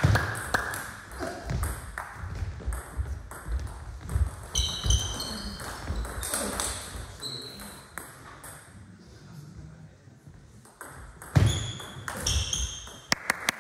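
Table tennis ball clicking back and forth off the bats and the table through a rally, with shoes squeaking on the sports-hall floor and footsteps thudding.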